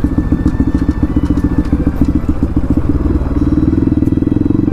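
Bajaj Pulsar NS200's single-cylinder engine running at low riding speed, a rapid even pulsing beat; about three seconds in the note steadies and firms up.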